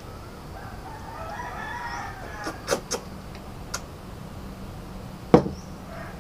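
A rooster crowing once in the background, one long call of about a second and a half starting about a second in. Then a few sharp clicks and, near the end, a louder knock.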